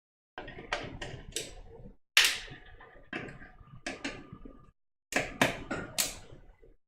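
Computer parts being handled: a run of sharp clicks, taps and knocks in three bursts, the loudest knock about two seconds in.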